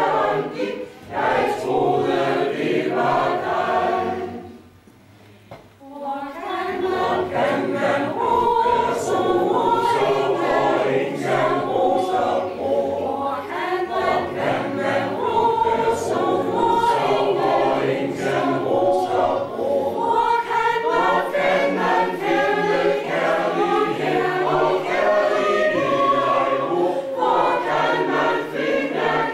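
Mixed choir of men's and women's voices singing together, with a short break about four seconds in before the singing resumes.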